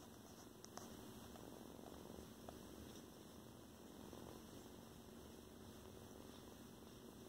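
Young kitten purring steadily while being petted, a soft continuous pulsing rumble.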